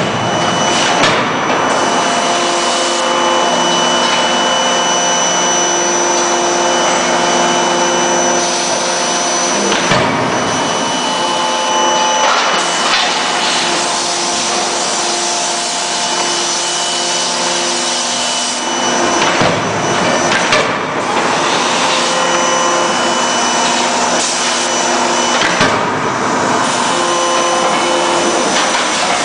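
Loud, steady forge-shop machinery noise with a constant hum of several tones, broken by a few sharp knocks several seconds apart, about six in all.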